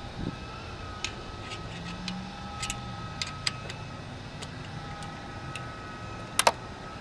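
Light clicks and knocks of RV generator exhaust pipe parts being handled and fitted together, with a sharp double knock near the end.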